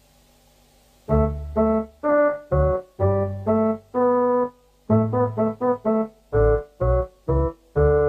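Electronic keyboard playing a simple tune in short, separate notes, starting about a second in after a quiet pause.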